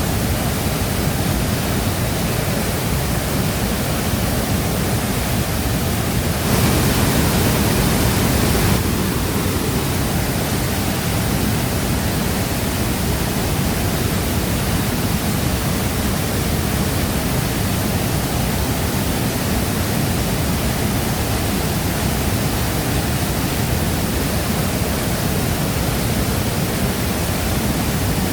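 Shifen Waterfall's water crashing down in a steady, dense roar of rushing water, briefly louder and brighter for about two seconds starting about six seconds in.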